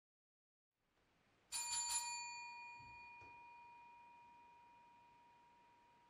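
Hotel front-desk service bell struck about three times in quick succession, then a long, slowly fading ring.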